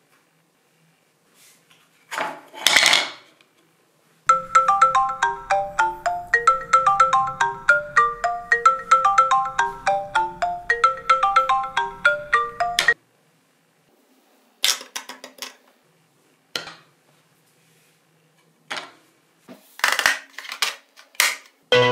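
iPhone ringtone for an incoming call: a quick, bright melody of plucked, marimba-like notes that plays for about nine seconds and then cuts off suddenly. Before it comes one loud swish, and after it several short swishes.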